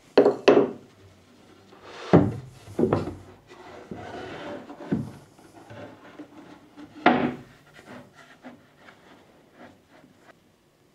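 Japanese pull saw cutting through wood in a series of uneven strokes that thin out and stop near the end.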